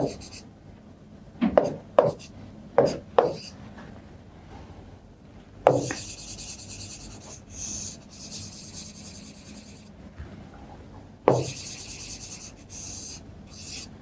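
A stylus tapping and sliding on the glass of an interactive touchscreen board: a few sharp taps in the first few seconds, then two long scratchy strokes, about four seconds and two seconds long, each starting with a tap.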